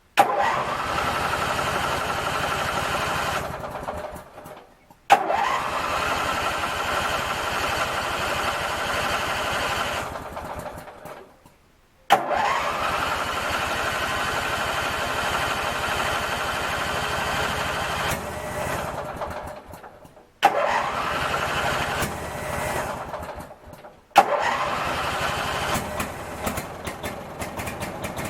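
Craftsman 19.5 hp twin-cylinder riding mower engine started five times: each start opens with a sharp click and the engine note rising quickly as it catches. The first four runs last about 3 to 6 seconds before winding down; the fifth, about 24 seconds in, keeps running.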